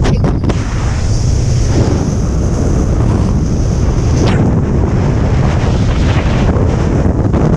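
Wind buffeting the camera's microphone during a parachute descent under an open canopy: a loud, steady rumble. A thin high hiss rides over it for the first four seconds or so, then stops.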